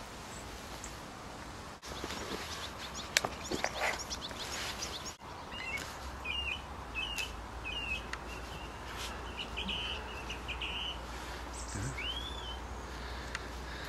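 Small birds chirping and calling in short repeated notes, ending in a single rising-and-falling whistled call, over steady outdoor background noise. One sharp click stands out about three seconds in.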